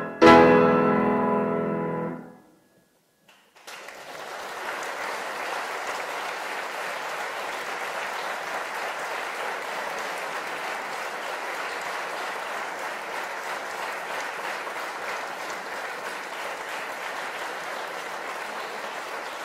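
A piano trio's final chord, struck hard and ringing away over about two seconds, then a brief hush. About three and a half seconds in, the audience breaks into steady applause.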